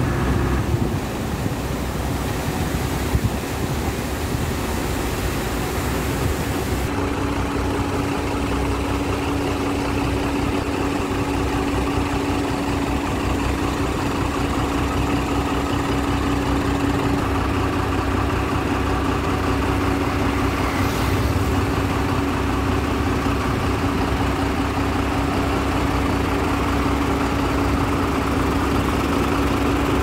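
Concrete mixer truck's diesel engine running steadily at idle, with a steady hum joining in about seven seconds in.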